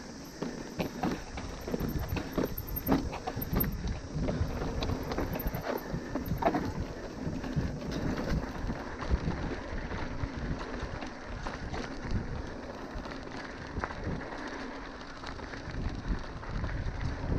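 Wind buffeting the microphone, with irregular rattles and knocks from riding fast over a rough, bumpy trail.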